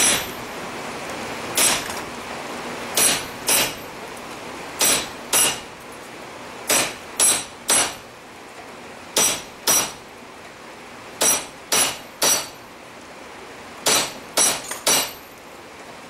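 Hammer blows on a chisel driven into a red-hot railroad spike held in a vise, hot-cutting a split to separate the horns of a bull's head. The strikes come mostly in pairs about half a second apart, a pair every second and a half or so, each with a short metallic ring.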